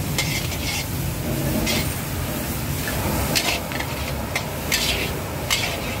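Food being stir-fried at a street-food stall: short, irregular hissing scrapes, about seven in all, over a steady low rumble.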